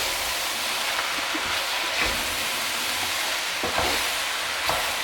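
Raw diced chicken and onion sizzling as they fry in a cast iron pan, with a few brief scrapes from stirring.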